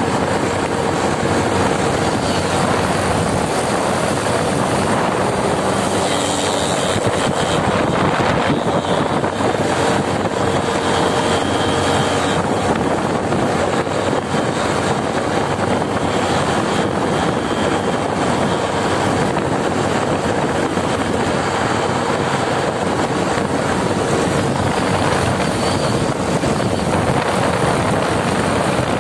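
Motorcycle underway at a steady speed: wind rushing over the rider-facing microphone with the engine running steadily underneath.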